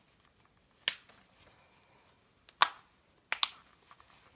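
Snap fasteners on a cloth nappy's waistband being pressed shut: a sharp click about a second in, then two quick pairs of clicks in the second half.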